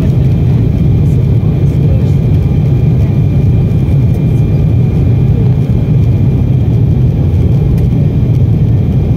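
Jet airliner cabin noise in the climb after takeoff: the engines and rushing air make a loud, steady low rumble, with faint steady whining tones above it.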